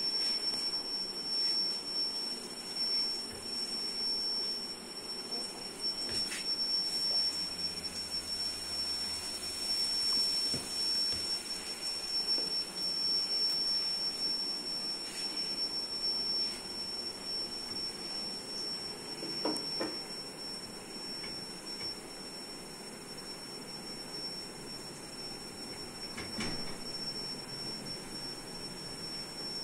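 Cornflour-coated potato fries sizzling in hot oil in a steel karahi as handfuls of raw strips are dropped in, the hiss easing off in the last third. A steady high-pitched tone sounds over it.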